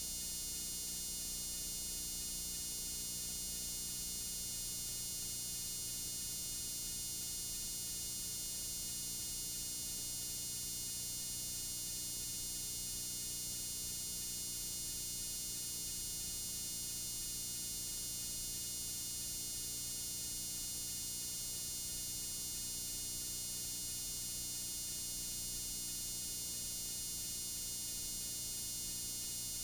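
Blank videotape playing back: a steady hiss with a low hum beneath it, unchanging throughout.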